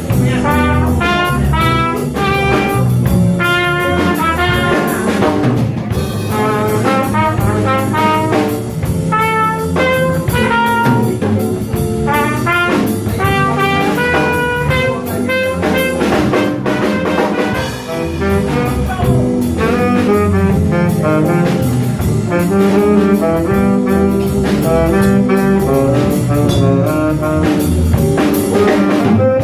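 Live jazz sextet of trumpet, tenor saxophone, trombone, piano, bass and drum kit playing, a horn running quick melodic lines over the rhythm section and cymbals.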